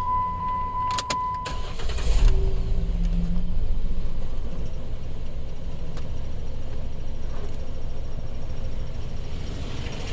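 A steady electronic beep that stops about two seconds in. Then the 2011 Jeep Wrangler's 3.8-litre V6 cranks, catches and keeps running steadily.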